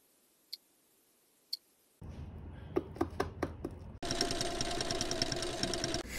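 A few faint ticks about once a second, then scissors snipping several times in quick succession through paper. About four seconds in, a sewing machine starts stitching: a steady run with fast, even needle clicks, the loudest sound here.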